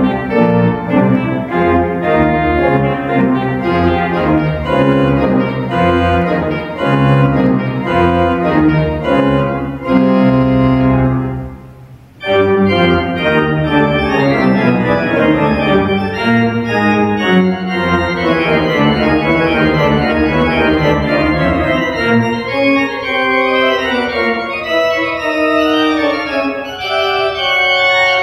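Schantz pipe organ (3 manuals, 40 ranks) playing dense sustained chords over a deep pedal bass. About twelve seconds in, a held chord is released and dies away in the hall's reverberation. Playing resumes a moment later and grows lighter toward the end.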